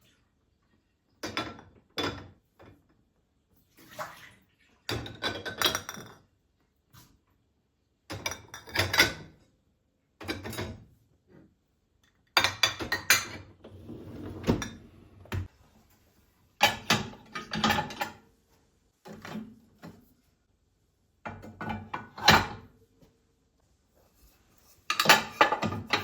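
Dishes and cutlery clinking and clattering as they are handled, in short bursts with quiet pauses between.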